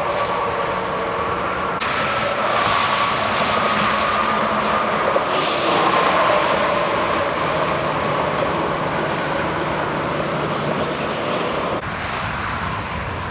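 Highway traffic going by: a steady roar of tyres and engines, with the whine of passing vehicles sliding slowly down in pitch.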